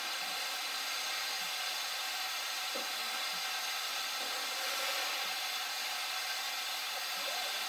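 Steady hiss of steam escaping from steam locomotives standing in steam, with a few faint knocks.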